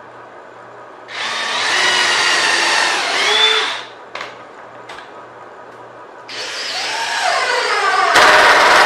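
Cordless drill running into a wooden block in two runs of about three seconds each, its motor pitch rising and sagging under load. The second run is the louder one and ends harshest.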